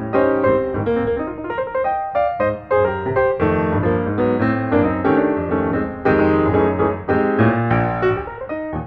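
Background piano music, a quick run of many notes.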